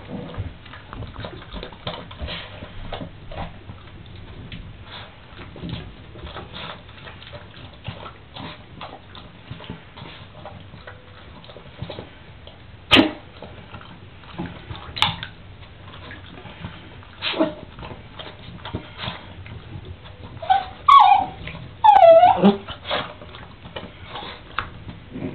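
Yorkshire terrier playing with a golf ball in an empty bathtub: a steady run of small clicks and taps from claws and ball on the tub, with a few sharp knocks. Near the end the dog gives a burst of whining yips.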